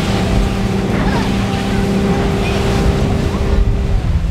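Motorboat engine running at a steady pitch while the boat is under way, over the rush of water along the hull.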